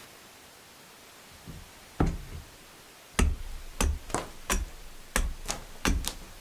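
Hand axe chopping a curved pine branch, hewing off bark and knots: about nine sharp strikes, the first about two seconds in, then quickening to two or three a second.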